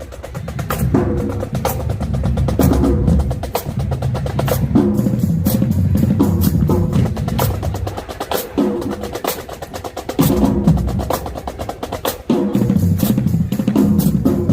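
Marching band drumline playing: rapid snare drum strokes and rolls over pitched bass drums, in loud, rhythmic phrases.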